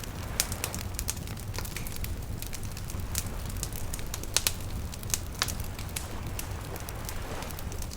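Campfire crackling: burning wood giving frequent irregular sharp pops over a steady low rumble.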